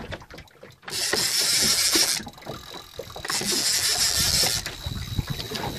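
Wind buffeting the microphone in gusts on an open boat at sea, with the noise coming and going several times.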